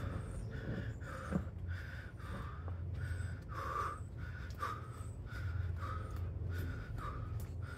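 A person breathing hard and fast from exertion during a strenuous workout circuit, quick regular breaths at about two or three a second, over a steady low hum.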